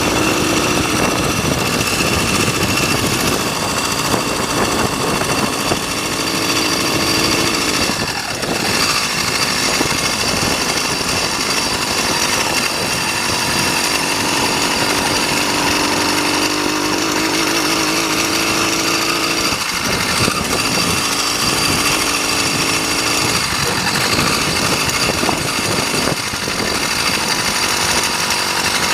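80cc two-stroke motorized-bicycle engine running with a continuous buzz, its pitch shifting a little as the throttle changes.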